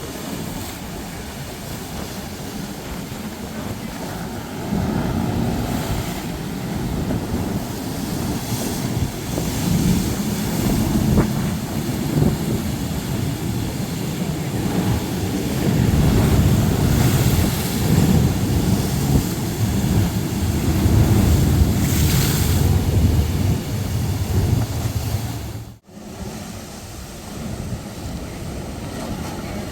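Ocean surf breaking and washing ashore, swelling louder toward the middle, with wind buffeting the microphone. The sound cuts out for an instant near the end.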